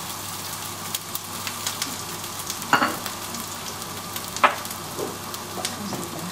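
Minced garlic and ginger sizzling in hot oil in a frying pan, a steady hiss with scattered small crackles. Two louder crackles come a little under three seconds in and again past four seconds.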